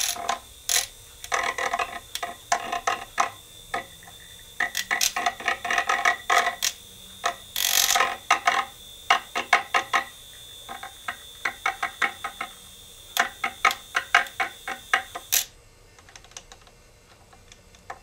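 Handheld electric paint stirrer mixing paint in a small glass jar, its spinning shaft clattering in rapid runs of clicks against the glass over a faint motor whine. The clattering stops about fifteen seconds in.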